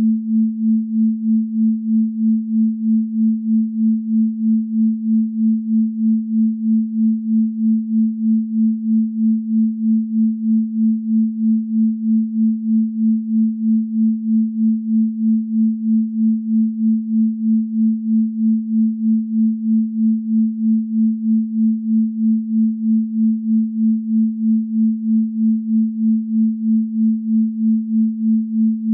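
Pure sine tone at 221.23 Hz, the so-called Venus frequency. It holds one steady pitch with no overtones, and its loudness pulses evenly about three times a second.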